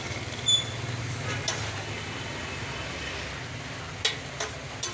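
Metal spatula scraping and clicking against a flat iron griddle (tawa) of frying shami patties, with a brief metallic ring about half a second in and a few sharp knocks near the end, over a steady low background rumble.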